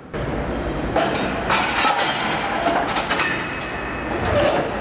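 Railway train noise: a steady rumble with many metallic clinks and clattering, cutting in suddenly.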